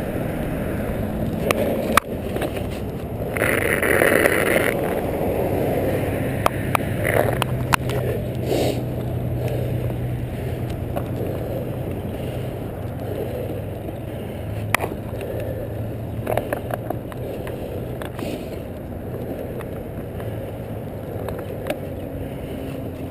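Car engine running with steady road noise while driving, heard from inside the car. A short louder rush of noise comes about three seconds in, and a few sharp clicks and knocks are scattered through.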